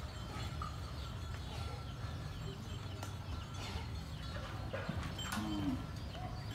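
Farmyard ambience: a steady low rumble with faint scattered chirps and clicks, and one short, faint animal call about five and a half seconds in.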